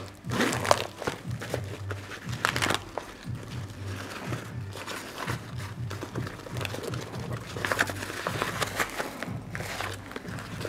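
Rustling of a nylon camouflage first-aid pouch as it is opened out and its inner panels handled, in a few short bursts, over background music with a steady low beat.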